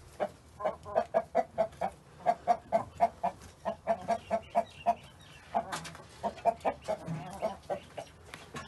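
Hens clucking: quick runs of short clucks, about four or five a second, broken by brief pauses.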